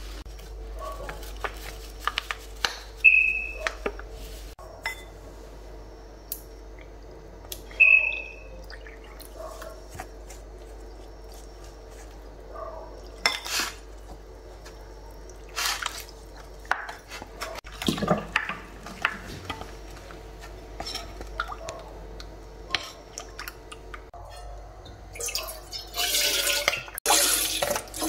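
Wooden spoon knocking and scraping against a glass bowl as flour is stirred with a liquid, heard as scattered clicks and knocks. Near the end, a stream of milk is poured from a carton into a steel pot.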